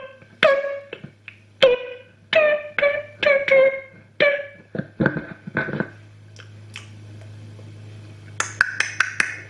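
Music playing through a portable PA speaker: a run of plucked, ringing notes, then a cluster of sharp, bright percussive hits near the end. A steady low hum runs under it.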